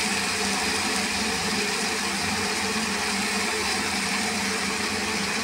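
Kitchen chimney (range hood) extractor fan running steadily: an even hum over rushing air.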